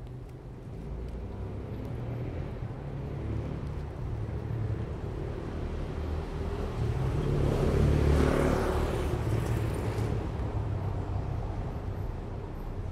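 City street traffic on a paving-stone road: a steady low rumble of cars. About eight seconds in, one car passes close, swelling and then fading.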